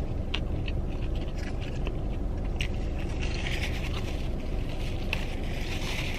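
Close-up chewing and crunching of a fried chicken sandwich, a run of small crackles and clicks, over a steady low rumble.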